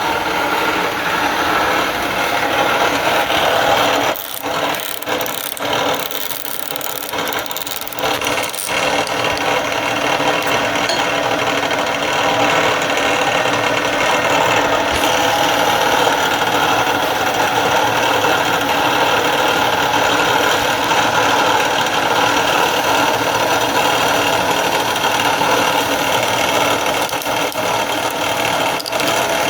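Machine tool running steadily while facing a workpiece to size, with a few brief interruptions and knocks between about four and eight and a half seconds in.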